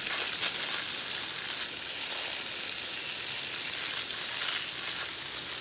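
Water spraying in a steady hiss, rinsing dirt off freshly dug elecampane roots.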